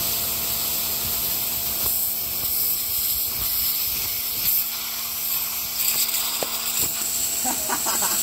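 Hyundai 105-bar pressure washer running with its pump humming steadily under a hissing high-pressure water jet, blasting a raw eggplant wedged between two concrete blocks and cutting it in two.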